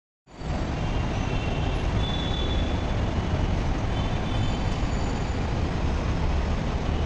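Steady rumbling hum of a metro train standing at the platform with its doors open, in open station ambience; it comes in after a brief silence at the very start.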